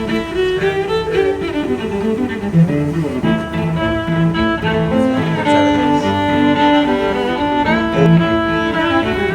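Background music led by bowed strings, cello and violin, playing a melody of held notes over a steady bass line.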